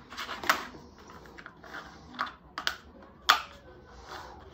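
Handling noise of a plastic fitting template and a vinyl floor plank being moved and set down on a vinyl floor: a handful of light clacks and taps among soft scuffs, the loudest clack a little over three seconds in.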